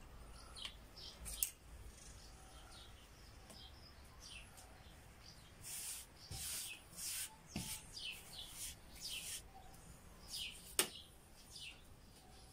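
Faint rustling and patting of floured puff pastry under the hands on a wooden cutting board, in short scratchy strokes that come thickest in the middle. Small birds chirp in the background. A single sharp click sounds near the end.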